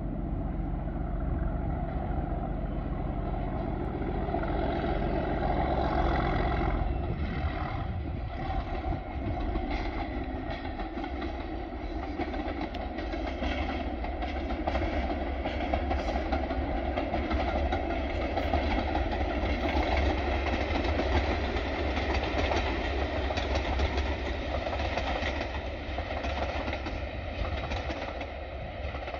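Class 37 diesel locomotive 37703 working a train, its English Electric V12 engine running steadily under load with train noise from the wheels.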